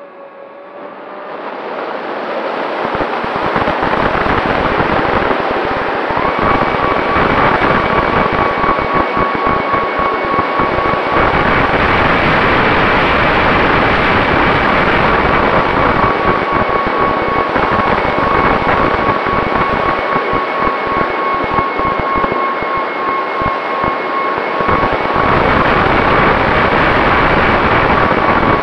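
FPV quadcopter's brushless motors and propellers whining in flight, picked up by the onboard camera with heavy wind rush. The sound builds over the first few seconds, then holds a steady high whine with a gusting rumble underneath.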